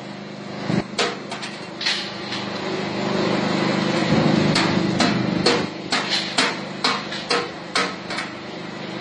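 Charcoal briquette extruder running with a steady machine hum. Over the hum come sharp knocks and clacks at irregular intervals as the hard extruded charcoal sticks are handled on the metal chute and table. The knocks come a few at a time, then more often in the second half.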